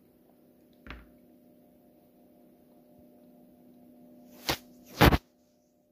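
Two short, loud rustling swishes about half a second apart, the second the louder, after a soft knock about a second in, over a faint steady hum.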